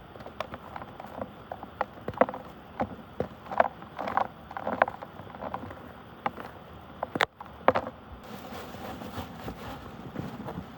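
Glass marbles knocking together in swirling muddy water: irregular sharp clicks and clacks over a steady watery rush.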